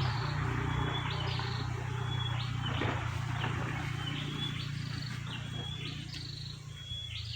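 A bird calling over and over, about once a second: a short level whistle followed by a quick higher note. Under it runs a low steady hum that stops near the end.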